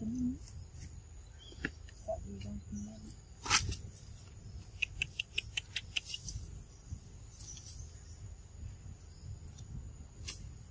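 Macaques with a baby: a few brief low calls, a single sharp click about three and a half seconds in, and a quick run of soft clicks a little later.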